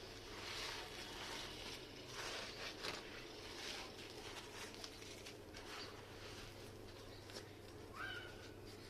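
Crunchy red sand being crumbled: a series of soft, crackly crunching strokes, uneven in spacing. A short chirp sounds near the end.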